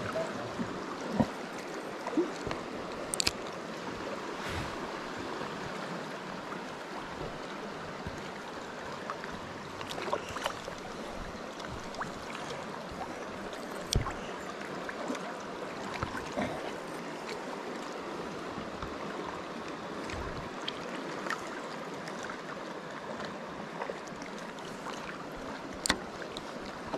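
Shallow, swift river water rushing steadily over rocks, with a few brief clicks and knocks, the sharpest about a second in and about halfway through.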